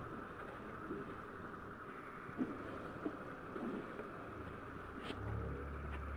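Outdoor background sound slowed to quarter speed, heard as a low, steady rumble with a few soft knocks. The rumble grows louder near the end.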